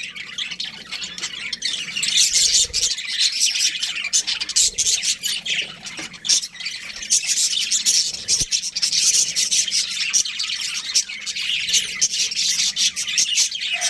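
Small pet parrots chattering without a break: a dense stream of rapid high-pitched chirps mixed with harsh squawks.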